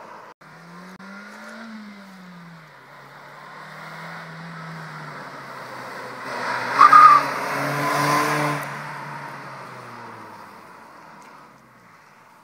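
A Nissan car's engine pulls hard through a gear, its pitch rising and then dropping. It grows louder and passes close by, with a brief high squeal at its loudest point, then fades as the car drives away.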